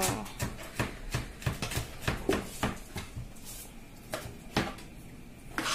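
Kitchen knife chopping onions on a plastic cutting board: a run of sharp, irregular knocks, a few a second, with a couple of louder knocks near the end.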